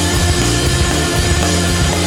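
Loud, dense rock music with distorted guitar and heavy bass.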